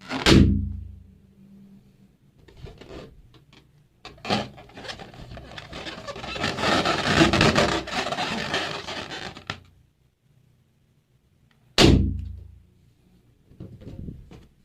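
Two sharp balloon pops, each with a short low boom that dies away, one just after the start and one about twelve seconds in. Between them come rustling and handling of rubber balloons and about five seconds of steady hissing noise.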